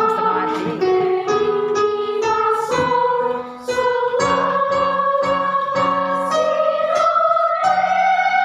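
Children's voices singing a slow melody with instrumental accompaniment. The sung line is held and climbs gradually near the end, over chords struck about twice a second.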